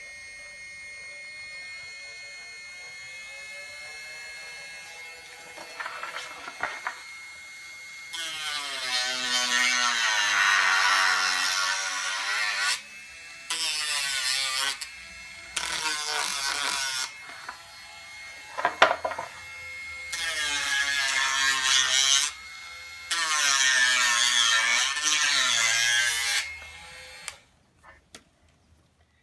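Cordless rotary tool (Dremel-type) with a small bit, grinding and smoothing the cut edges of PVC pipe. After a quieter stretch it whines loudly in five passes of a few seconds each, its pitch sagging and recovering as the bit bites into the plastic, and it stops shortly before the end.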